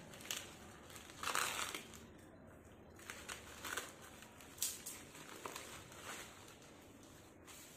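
Plastic courier mailer bag crinkling and rustling in irregular bursts as it is slit with a utility knife and pulled open, the longest burst about a second in and a sharp one just after halfway.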